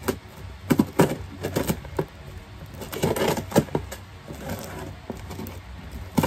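A package being handled and opened: irregular crinkles, rustles and clicks of packaging.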